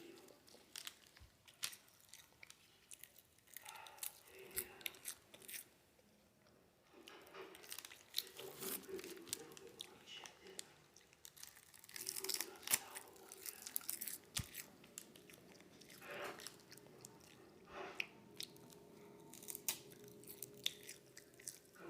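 Seaweed being bitten and chewed, crunching with many sharp crackles in uneven clusters and softer mouth sounds between them.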